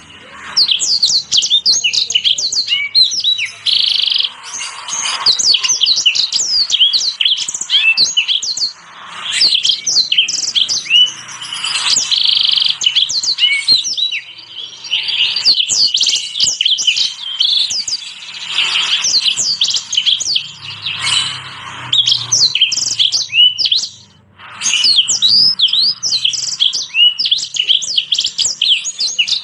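Small finches singing a fast, continuous warbled song of high chirps, trills and whistled notes, in a song-tutor mix of yellow-fronted canary, black-throated canary and red siskin. The song breaks off briefly twice, once about a third of the way in and again past three quarters.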